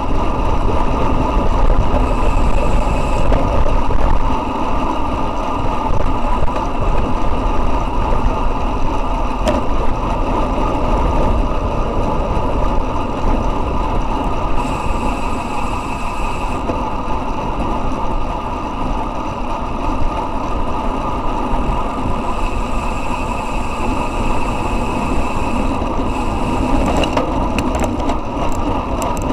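Wind rushing over the microphone of a camera mounted on a road bike ridden at about 45 km/h, with the tyres humming on asphalt. Near the end the rider stops pedalling into a corner and a run of fast clicks comes in, the freewheel ticking as he coasts.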